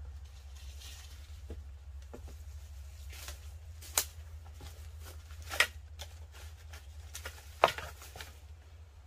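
Footsteps and rustling through leaf litter and undergrowth, with three sharp cracks of twigs or sticks snapping about a second and a half apart in the second half.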